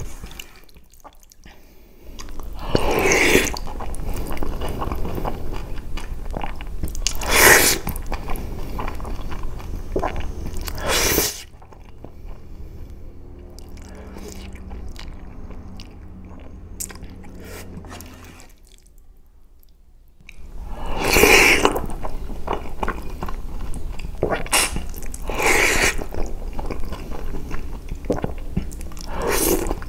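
Close-up eating sounds of spaghetti bolognese: chewing, with a loud slurp of noodles every few seconds and a quieter stretch of softer chewing in the middle.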